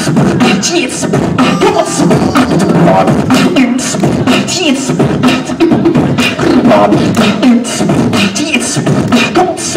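A human beatboxer performing into a handheld microphone: a fast, unbroken rhythm of vocal drum hits, clicks and snares over a low hummed bass.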